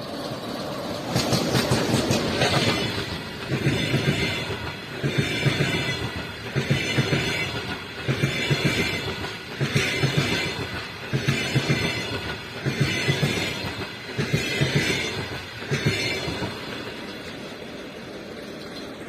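Passenger train hauled by an EP20 electric locomotive passing by. The coaches' wheels clatter over the rail joints in regular groups about every second and a half, easing off near the end.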